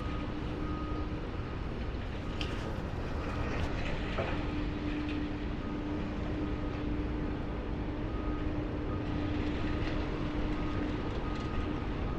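High-reach demolition excavator running at a distance: a steady engine drone with a held whine that comes and goes. A few faint knocks come about two to four seconds in.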